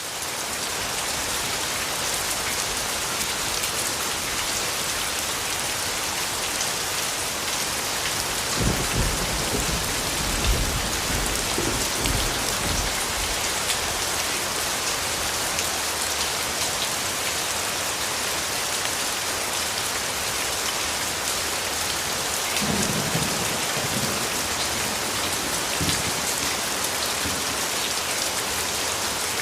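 Steady heavy rain falling, an even dense hiss, with low rumbles of thunder about nine seconds in and again near the end.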